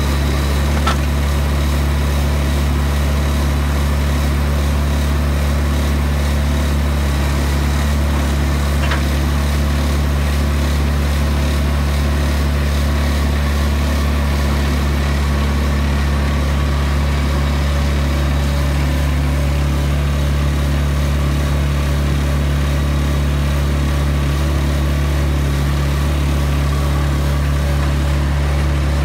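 Engine of a Vermeer D16x20 horizontal directional drill running steadily at constant speed, a continuous low drone that holds the same pitch and loudness throughout.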